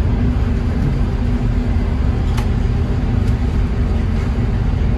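Steady low rumble and hum of background noise in an indoor range, with a few faint clicks about halfway through and near the end as a magazine is worked at a Draco AK-pattern pistol that won't seat properly.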